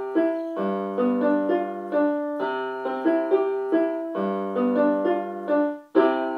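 Piano-like keyboard playing an instrumental passage of short melody notes over chords. Near the end it briefly stops, then a new chord sounds and is held.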